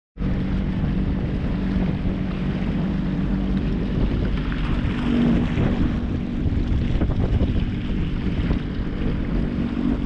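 Personal watercraft (jet ski) engine running steadily under way, with wind buffeting the microphone.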